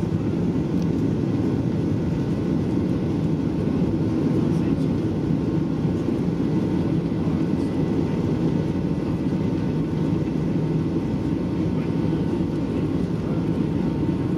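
Cabin noise of a Boeing 737-800 accelerating down the runway on its takeoff roll, heard from a window seat over the wing: the CFM56-7B turbofans at takeoff power and the rolling of the wheels make a steady low rumble, with a faint steady whine above it.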